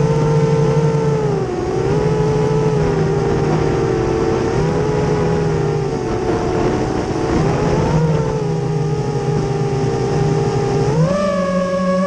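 Racerstar BR2205 2300KV brushless motors and propellers of an FPV racing quadcopter whining steadily. The pitch dips and recovers with the throttle, then rises sharply about eleven seconds in.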